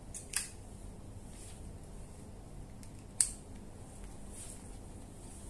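Two sharp plastic clicks about three seconds apart, the second louder, with faint handling rustle between them: the patient plate cable's clip connector being opened and snapped onto the tab of a disposable electrosurgical return electrode.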